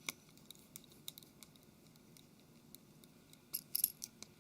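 Light metallic clicks of a small Phillips screwdriver and a tiny screw being worked into a phone's frame, scattered and sparse, with a quick cluster of sharper clicks about three and a half seconds in.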